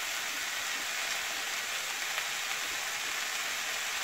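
Jackfruit seed and bitter gourd thoran with grated coconut sizzling steadily in a metal kadai, drying out over the heat.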